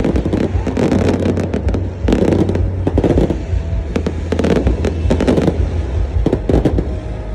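Fireworks going off: a rapid, irregular string of sharp pops and cracks over a steady low rumble.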